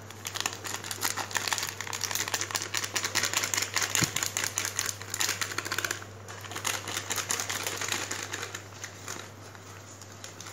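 Plastic packet of bajji batter mix crinkling and rustling in the hand as it is opened and shaken out over a bowl. The crackling is dense and rapid for about the first six seconds, then lighter.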